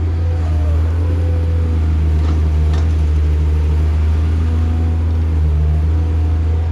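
Heavy diesel engine of earthmoving machinery, an excavator loading a dump truck, running steadily with a deep drone and a few tones that shift in pitch.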